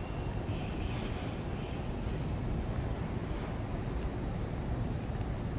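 Steady low rumble of city street ambience, with no distinct events.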